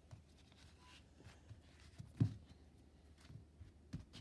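Quiet room tone with a single soft thump about halfway through.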